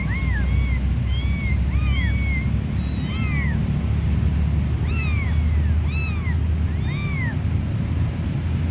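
Kittens mewing: short, high, thin calls that rise and fall, many in quick succession and overlapping, pausing about three seconds in and then starting again. A steady low rumble runs underneath.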